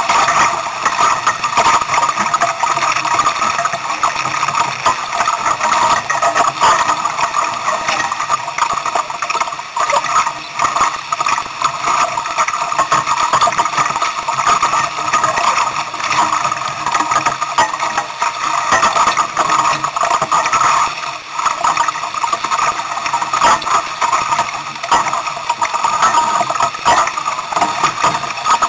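Wind and water rushing past a small Sunfish sailboat under way in strong wind: a steady, loud rush that surges and dips irregularly.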